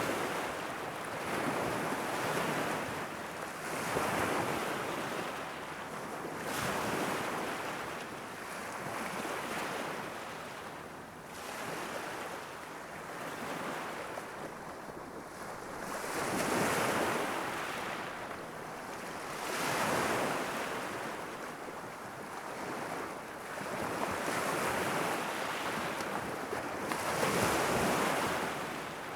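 Small sea waves breaking and washing against a rocky shore, swelling and easing every few seconds in an unbroken rhythm, with a light wind rumble on the microphone.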